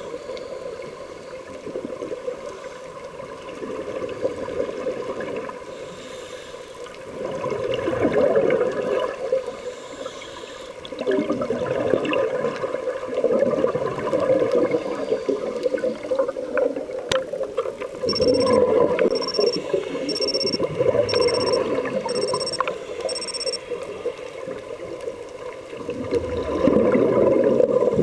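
Scuba divers' exhaled regulator bubbles rushing and gurgling underwater, swelling in surges a few seconds apart. Six short high electronic beeps about a second apart sound past the middle.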